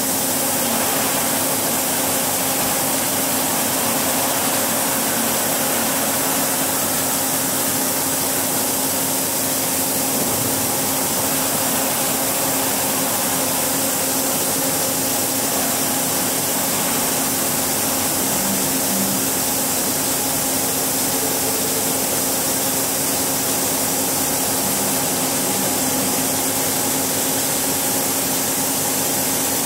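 Niigata HN-80C CNC horizontal machining center running under power while its pallet table traverses: a steady hum with a few held tones and a hiss over it.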